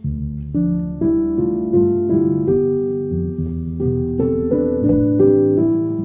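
Instrumental background music: a slow, gentle piano piece, with single notes struck one after another and left to ring.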